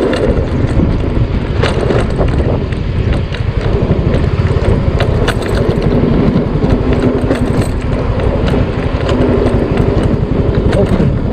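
Motor scooter riding noise: the engine running under heavy wind buffeting on the microphone, with scattered sharp clicks over a rough road surface.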